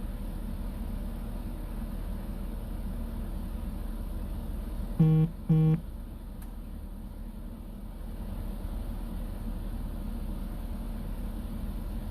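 Steady low rumble of an idling vehicle engine. About five seconds in come two short, loud beeps in quick succession.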